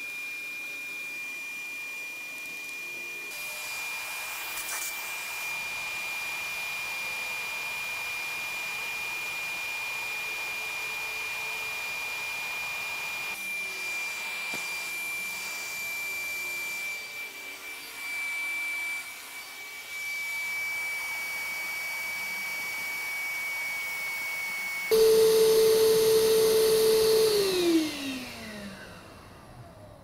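Stihl SEA 20 cordless handheld vacuum motor running steadily with a high whine. Near the end it is louder, then the motor winds down with a falling pitch as the battery runs flat and cuts out.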